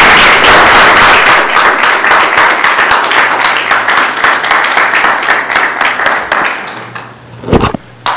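Audience applauding, the clapping thinning and dying away about seven seconds in. A short thump follows near the end.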